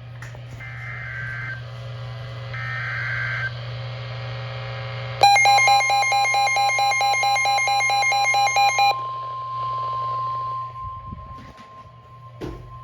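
NOAA Weather Radio emergency alert activation over a steady radio hum. There are two short bursts of data tones, each about a second long, then about five seconds in a loud, harsh layered alert tone for nearly four seconds. A single steady alert tone keeps sounding after it to the end.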